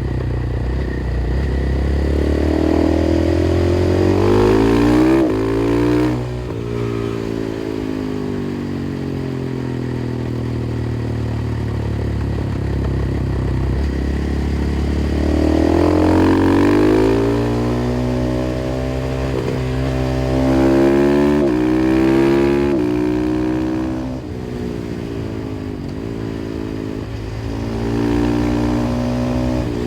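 KTM 500 EXC-F supermoto's single-cylinder four-stroke engine through an FMF exhaust, accelerating hard with revs climbing and dropping sharply at each upshift, then falling away as the throttle is rolled off. This happens twice in long pulls, with a shorter pull and shift near the end.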